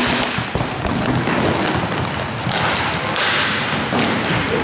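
Inline roller hockey play: repeated sharp stick hits and thuds against the rink boards over a steady noisy rumble of skates on the rink floor, echoing in a large hall.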